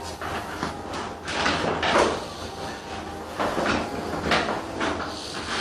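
A person turning over on a padded chiropractic treatment table: a series of rustles, with soft knocks and creaks as the table takes the shifting weight, the strongest about two seconds in.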